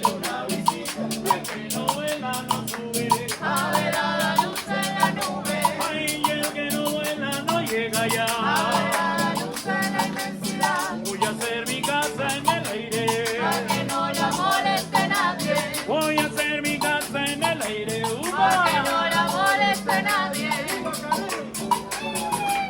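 Vallenato played on Andean harp and acoustic guitar: fast runs of plucked notes over a steady bass line. Hand percussion shakes an even, quick rhythm underneath.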